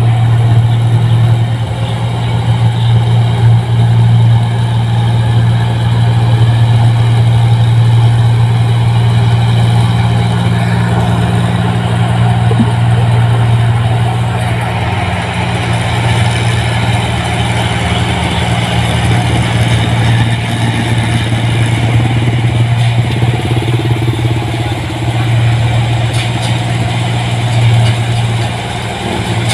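New Holland 1545 combine harvester running steadily while harvesting rice: a loud, constant diesel engine drone with the hum of its working machinery.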